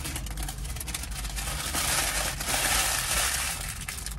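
Food wrapping crinkling and rustling as it is handled, loudest in the middle and cutting off sharply near the end.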